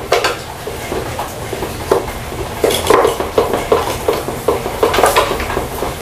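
A crow knocking and pecking with its beak at a small toy on wooden pallet boards: an irregular clatter of light knocks, thickest about three seconds in and again near five seconds.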